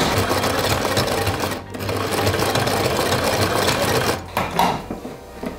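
Domestic sewing machine sewing a zigzag stitch, a fast even rattle of the needle mechanism that pauses briefly about a second and a half in and stops about four seconds in.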